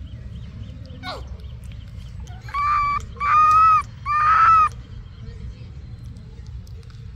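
Three loud animal calls, each about half a second long and held at one steady pitch, come one after another near the middle. A short falling chirp sounds about a second in.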